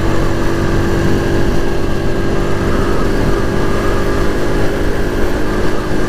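SYM VF3i 185 scooter engine running steadily at cruising speed, mixed with wind and road noise.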